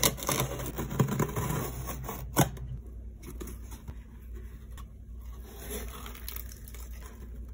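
Box cutter slicing through packing tape on a cardboard box, with scraping and tearing and a sharp crack about two and a half seconds in, then lighter rustling as the cardboard flaps are opened.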